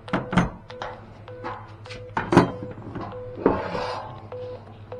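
Satellite-finder phone app beeping steadily, about two short beeps a second, while the dish is aimed. Several sharp knocks of handling, the loudest about two and a half seconds in, and a brief scrape about three and a half seconds in.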